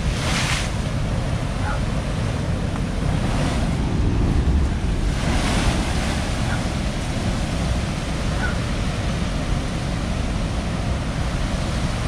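Heavy storm surf crashing against a stone seawall: a wave bursts into spray right at the start and another breaks over the wall about five seconds in, sending water pouring down its face, over a continuous rush of surf. Wind rumbles on the microphone.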